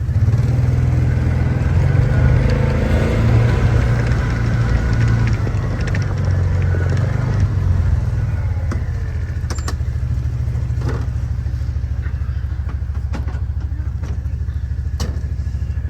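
A motor vehicle's engine running steadily with a deep, evenly pulsing rumble, with occasional light clicks and rattles.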